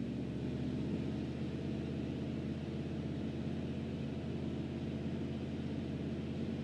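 1976 Chevrolet C65 log truck engine running at a steady speed, driving the hydraulic log loader while it holds up a small wooden building.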